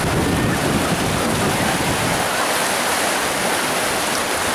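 Whitewater rapids rushing: a loud, steady wash of water noise.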